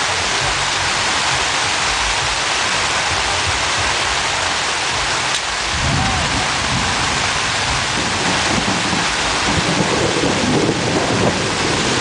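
Heavy rain pounding steadily on the tent fabric, heard from inside the tent. A low rumble of thunder swells under the rain from about halfway through.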